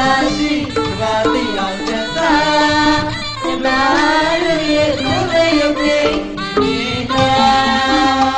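Traditional folk-style music: a melody that bends and slides in pitch over steady percussion.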